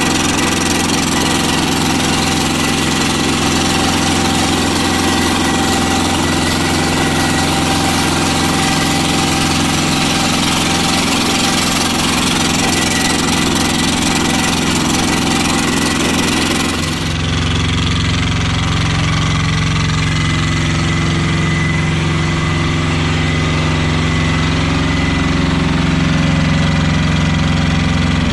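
Kubota diesel engine in a Sears Suburban 12 hydrostatic garden tractor running steadily with its throttle tied open while the tractor drives. About two-thirds of the way through the sound cuts to the same engine heard up close, running steadily with a deeper, fuller note.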